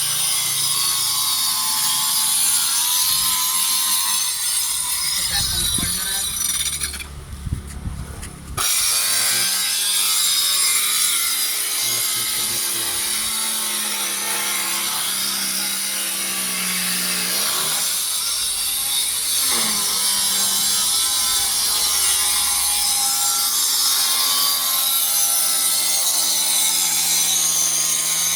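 A machine running with a steady grinding, rasping noise whose pitch wavers up and down; it cuts out briefly about a quarter of the way in, then resumes.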